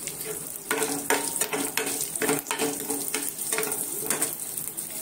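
Tempering of garlic, curry leaves, green chillies, mustard seeds and cumin sizzling in hot oil in a non-stick pan, with a steel spoon stirring and scraping the pan in repeated strokes about every half second.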